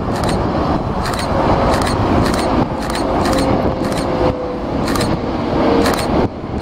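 Boeing 747-8's four GEnx jet engines passing low on landing approach, a loud steady rumble with a faint tone that dips slightly in pitch. Wind buffets the microphone in short gusts.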